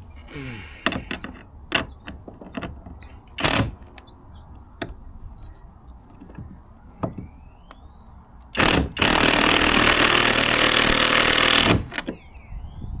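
Scattered clicks and knocks of tool handling, then a power driver runs in a short burst and then one long run of about three seconds that stops abruptly, driving a bolt into the kayak's plastic.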